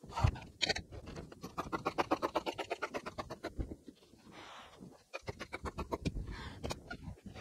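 Fabric shears cutting across a length of bonded interlining in a quick, even run of snips, with the cloth rustling.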